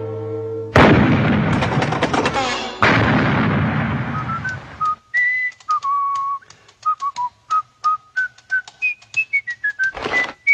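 Cartoon bomb explosion: two loud blasts within the first few seconds. Then a whistled tune of short notes hopping up and down in pitch for about five seconds, with another short blast near the end.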